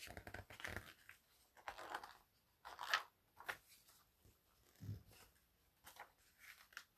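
Paper pages of a picture book being handled and turned: a string of soft, irregular rustles and crinkles.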